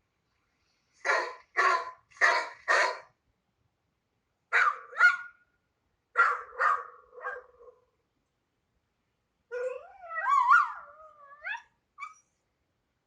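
Dog barking in short groups: four quick barks, then two, then a few more. Near the end comes a longer call that slides up and down in pitch.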